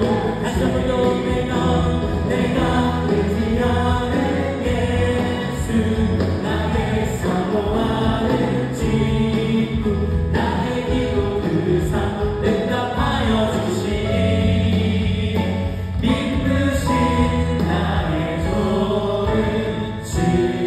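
Live worship band music: several singers sing a Korean praise song in unison over acoustic guitar and band accompaniment with a steady beat.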